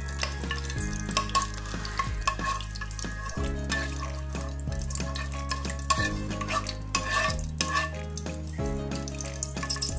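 Metal spoon scraping and clicking against a pan while stirring lumps of ghee into hot soybean oil, with light sizzling as the ghee melts. Under it, steady low tones change pitch every second or two.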